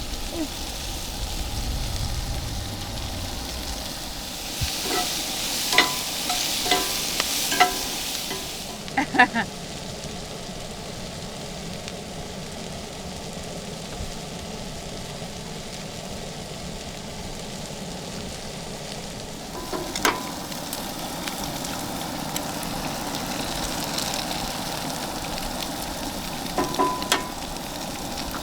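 Eggs sizzling in a frying pan while being stirred and scrambled, with a few short runs of a utensil clinking against the pan.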